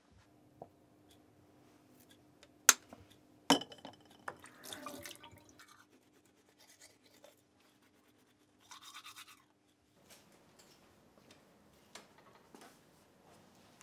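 Two sharp clicks a little under a second apart with some handling rustle after them, then a short stretch of toothbrush scrubbing at the teeth about two-thirds of the way in.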